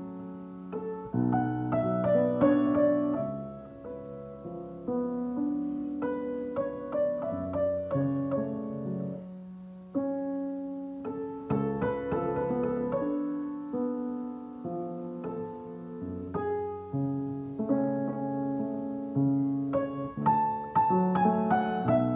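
Solo piano playing a slow piece of chords under a melody, each note striking and ringing out as it fades.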